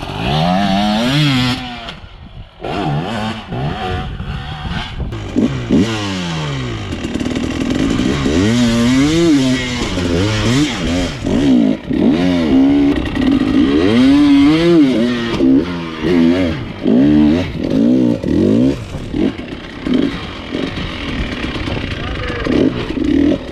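Dirt bike engine revving hard in repeated throttle bursts, its pitch rising and falling about once a second, with a brief drop about two seconds in.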